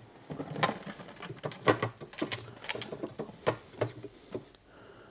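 Hands placing blackberries onto a mesh-lined plastic food-dehydrator tray: a quick, irregular run of light taps and clicks that stops shortly before the end, leaving a faint steady hum.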